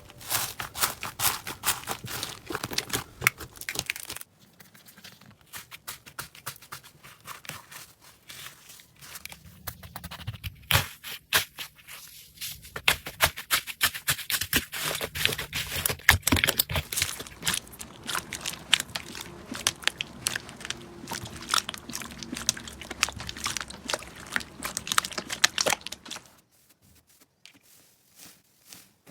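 Slime being squeezed and worked by hand: dense, irregular crackling clicks, quieter a few seconds in, then busier, and dying away near the end.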